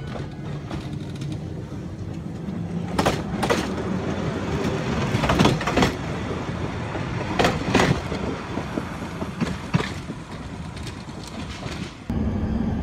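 A rail vehicle running along the track, over a steady rumble, with its wheels clacking over rail joints in pairs several times. Near the end the sound changes abruptly to a louder, steadier rumble.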